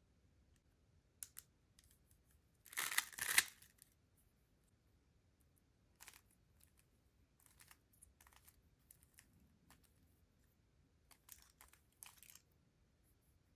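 A 3x3 speed cube's layers being turned by hand, clicking and clacking: a quick flurry of turns about three seconds in, then scattered single turns.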